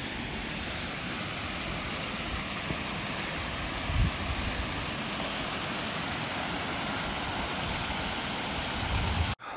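Small mountain creek trickling over rocks, a steady rush of water, with a low thump about four seconds in; the sound cuts off abruptly just before the end.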